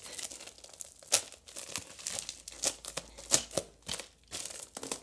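Plastic mailer bag crinkling and crackling as it is twisted and pulled by hand to tear it open, in irregular sharp crackles, loudest about a second in and again a little past three seconds.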